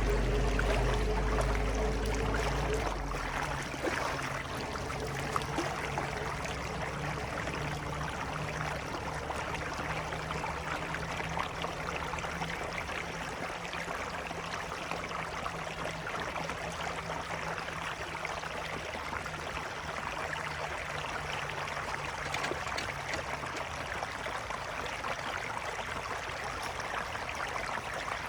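Water running steadily, as floodwater draining away. A low hum stops about three seconds in.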